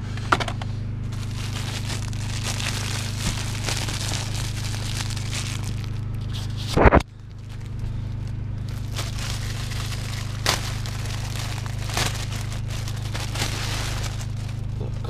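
Plastic wrapping of a new cabin air filter crinkling and rustling as the filter is unwrapped and pulled out, with a loud knock about seven seconds in. A steady low hum runs underneath.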